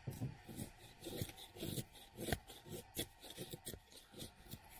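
Knife blade shaving thin curls off a stick of resinous pine fatwood, making tinder. A quick, uneven run of short scraping strokes, about two to three a second.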